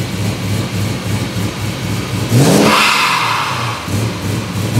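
BMW M3 E92's 4.0 V8 with a G-Power centrifugal supercharger idling, then blipped about two seconds in. As the revs drop, the blow-off valve vents with a loud hiss lasting about a second and a half, and a second rev starts near the end.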